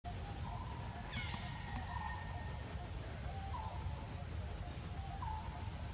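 Outdoor ambience: insects keep up a steady high-pitched drone, with a few short faint chirping calls over it.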